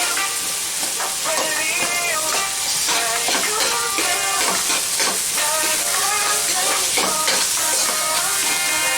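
Food sizzling as it fries in a pan, with a steady hiss. A song with a singing voice plays underneath.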